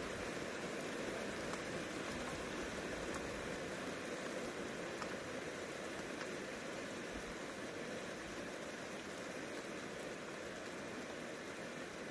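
Steady rain falling: an even hiss with faint scattered drop ticks, growing slightly fainter.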